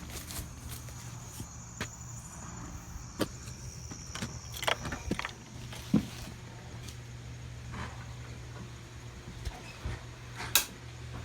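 Scattered clicks, knocks and light rattles of a person walking and handling things, over a steady low hum.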